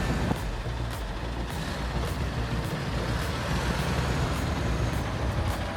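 Heavy-haul truck's engine running steadily with a low rumble, pulling a loaded lowboy trailer, with faint light ticks about twice a second.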